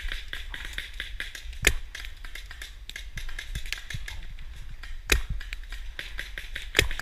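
Paintball markers firing: scattered sharp pops of varying loudness, with a few louder shots about a second in, around five seconds in and near the end.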